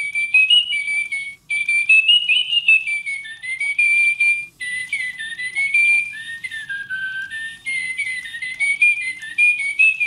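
Little Live Pets Love Birds robotic toy bird (Moose Toys) singing a whistled electronic tune through its small built-in speaker, set off by being petted: a melody of gliding notes with brief pauses.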